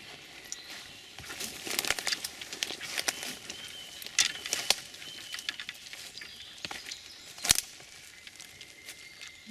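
Irregular crackling and rustling footsteps in wet leaf litter and twigs as a person walks up and kneels down, with one louder snap near the end, over light rain pattering.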